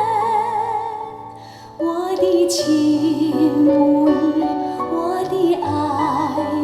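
Recorded music played back through a 2A3 tube amplifier and a two-way loudspeaker: a woman singing a slow melody with wide vibrato over sustained instrumental accompaniment. There is a brief lull about a second in before the voice comes back.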